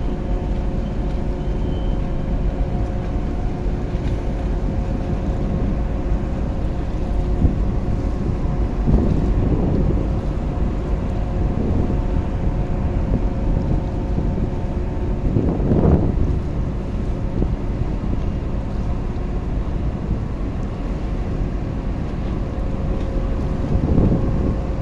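Boat engine running steadily, with wind on the microphone and a few brief louder swells.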